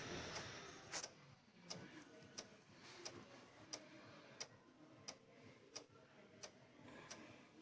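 Faint, even clicking of a vehicle's flasher relay, about three clicks every two seconds.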